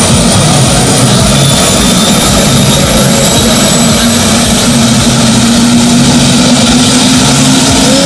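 Helicopter turbine engine running on the ground with the main rotor turning, its whine rising slowly in pitch as it spools up.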